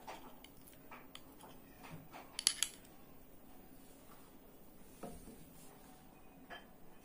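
A steel spoon clinking against a small glass bowl, with a couple of sharp clinks about two and a half seconds in, then a dull knock about five seconds in as the bowl is set down. Light handling clicks throughout.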